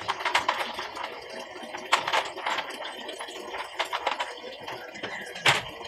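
Water splashing and sloshing as a puppy is washed by hand over a bucket, with scattered small clicks and two sharper knocks, about two seconds in and near the end.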